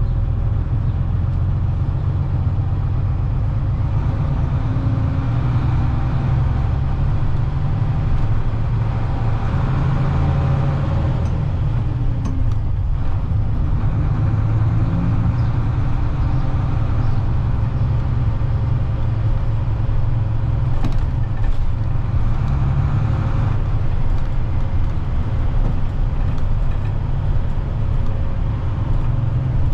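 Bedford YMQ coach's diesel engine running under way, heard from the driver's cab along with road noise, the engine note rising and dipping several times.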